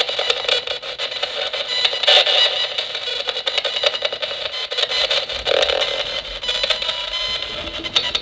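Nanocom Coffin Edition spirit radio sweeping through stations: a fast, choppy stream of static and clipped snatches of broadcast sound.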